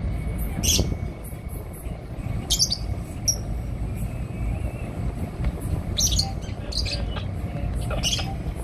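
About six short, high bird chirps scattered a second or two apart, over a steady low rumble.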